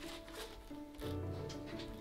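Background music: held tones over a low bass line, with light ticking accents.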